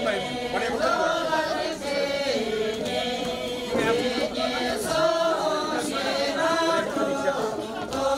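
A group of voices singing a Sherpa shyabru song together, a chant-like melody with long held notes.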